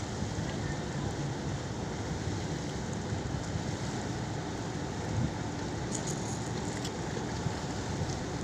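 Steady low rumble of a boat's engine running on the water, with wind on the microphone.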